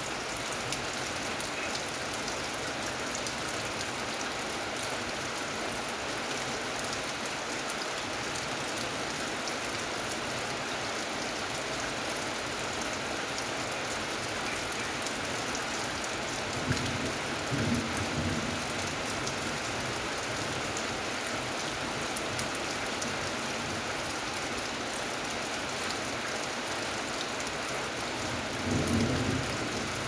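Steady rain falling on corrugated metal roofing, with two brief low rumbles of thunder: one a little past halfway and one near the end.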